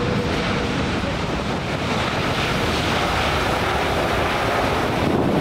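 Steady rushing noise of a jet airliner's engines on landing approach, mixed with wind buffeting the microphone.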